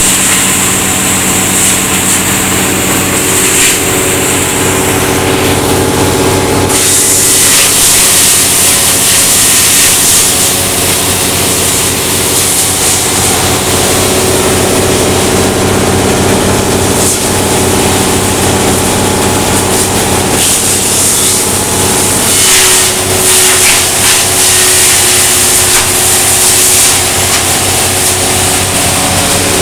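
Veneer wood chipper running with a steady engine drone. A loud rushing noise of material going through the chipper comes up about seven seconds in and keeps surging.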